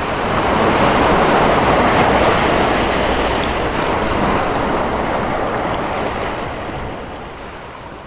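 Ocean surf, a steady rush of breaking waves that slowly fades out over the last few seconds.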